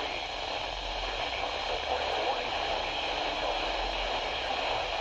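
Steady hiss and static from a radio receiver on a weak broadcast signal, with a faint voice barely showing through the noise.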